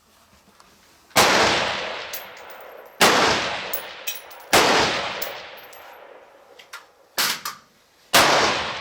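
Rifle shots fired one at a time, four loud ones a second and a half to three and a half seconds apart, each followed by a long echo that dies away over a second or more. There is a shorter, weaker crack just before the last shot.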